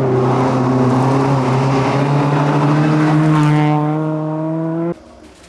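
Historic rally car's engine running hard at high revs as it comes through. The pitch holds, then climbs over the last couple of seconds, and the sound cuts off abruptly near the end.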